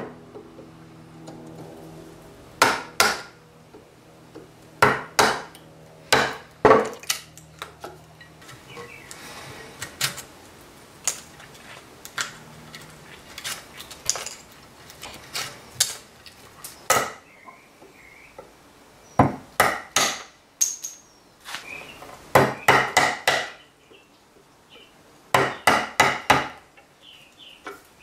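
Mallet blows on a chisel chopping a mortise in white oak: sharp wooden knocks in irregular groups. The knocks are smaller through the middle stretch and come in quick runs of several blows near the end.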